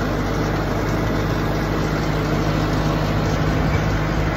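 Tractor engine running steadily at an even speed, heard from the driver's seat.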